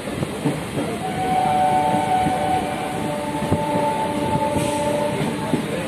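A train horn sounds one long two-note blast lasting about four seconds, over the rumble and knocking of the carriage running on the track.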